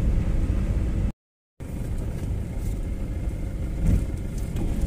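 Car driving on a wet, puddled road, heard from inside the cabin: a steady low rumble of engine and tyres. It cuts out suddenly for about half a second a little over a second in, then carries on.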